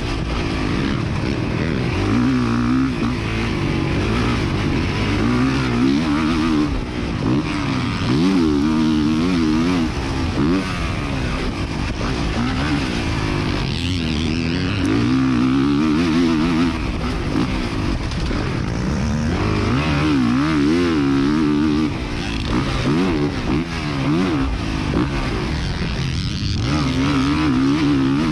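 Motocross dirt bike engine heard from on board, revving up and down continually as the rider accelerates, backs off and shifts around the track. The engine pitch sweeps up and drops back every few seconds, over steady rushing noise.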